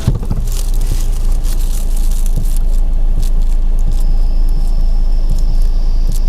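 Irregular knocking from the steering rack of a 2017 Skoda Octavia A7 as the steering wheel is turned, heard inside the cabin over a steady low rumble, with a thin high whine in the second half. The mechanic suspects dried grease in, or an overtightened, support bushing of the rack, mostly on the right side, since there is no play.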